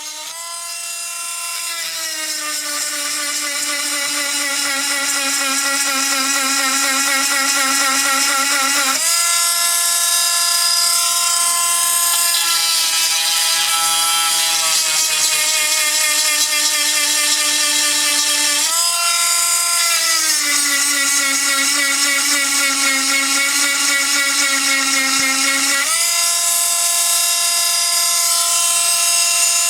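Granberg 12-volt handheld grinder's small motor whining as it grinds a damaged chainsaw tooth back to clean metal. The pitch sags twice while the stone bears on the tooth and jumps back up each time it is lifted off.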